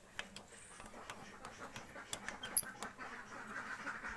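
Light clicks, about three a second, from hand-pumping the fuel primer on a Swaraj tractor's diesel injection pump to bleed out air that got into the fuel system. Toward the end, ducks quack in the background.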